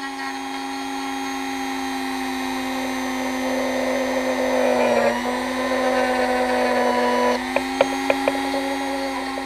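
Dremel 4000 rotary tool running with a steady high whine as a small bit grinds into the corners of an ESC case. The pitch sags briefly about halfway through as the bit bites in, and a few sharp clicks come near the end.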